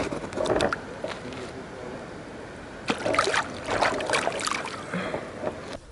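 Water splashing and dribbling in two irregular spells, one in the first second and another from about three to nearly five seconds in.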